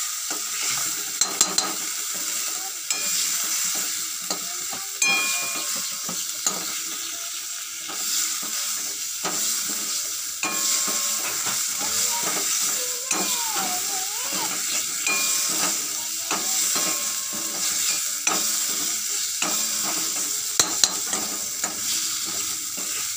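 Cauliflower-leaf paste frying and sizzling in oil in a metal kadai, being fried down until dry, while a metal spatula stirs and scrapes it, with scattered clicks of the spatula against the pan over a steady hiss.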